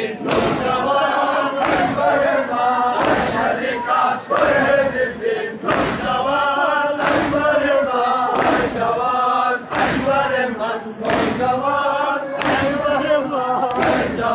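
A crowd of men chanting a noha together, with loud rhythmic chest-beating (matam): a sharp slap of many hands on chests a little more than a second apart.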